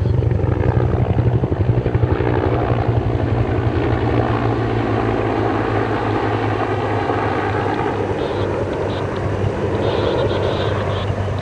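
Firefighting helicopter with a water bucket slung beneath it flying overhead, its rotor beating in a rapid, steady thud.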